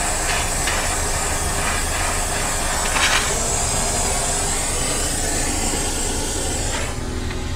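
Handheld gas torch burning with a steady hissing flame, played on the rear axle tube to heat it for a press-fit wheel bearing. The hiss drops away about seven seconds in.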